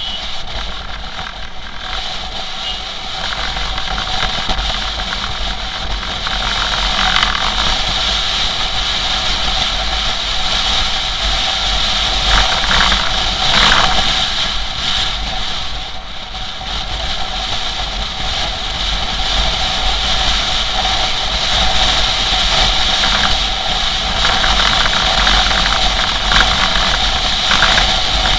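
Motorcycle cruising at highway speed: steady engine and road noise with wind rumbling on the microphone.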